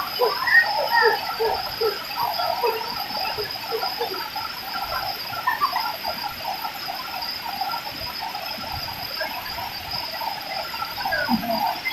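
Chorus of insects and frogs: a steady high-pitched insect drone with many short chirping calls over it.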